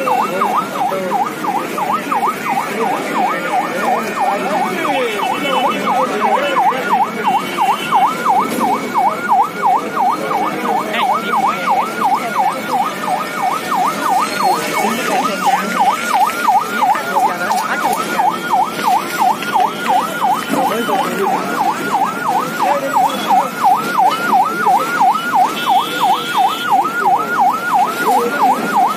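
Emergency vehicle siren on a fast yelp, sweeping up and down about three times a second without a break.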